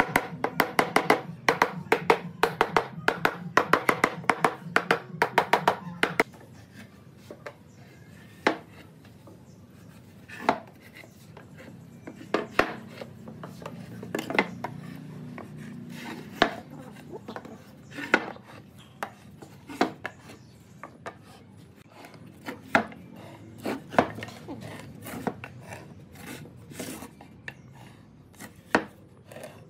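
A mallet taps rapidly and steadily on a wooden box for about six seconds, then stops abruptly. After that, a marking gauge scrapes along a wooden board as it scribes lines, with scattered single knocks of wood on the bench.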